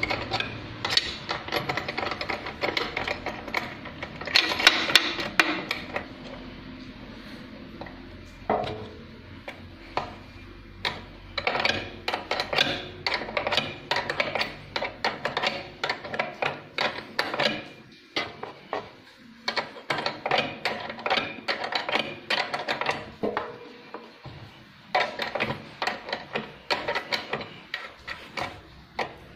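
Irregular metal clicks and clinks of a wrench working the bolts on a sewing-machine servo motor's mounting bracket, coming in quick runs, with a louder cluster about four to five seconds in.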